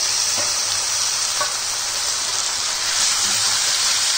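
Raw bone-in chicken pieces sizzling steadily in hot oil in a kadai with onions and ginger-garlic paste, while a wooden spatula stirs them.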